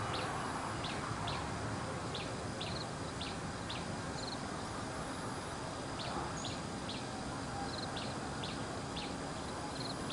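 Small bird chirping over and over, short high chirps about two or three a second with a short pause midway, over a steady outdoor hiss.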